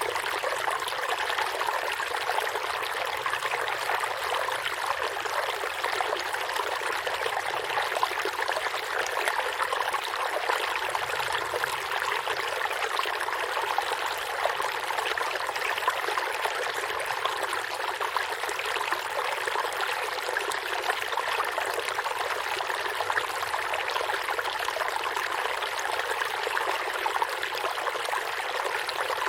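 Stream of water flowing and splashing steadily over rocks, an even rushing sound with no pauses.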